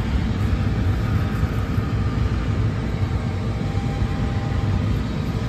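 Combine harvester running steadily beside the header: an even low drone with a faint steady hum over it.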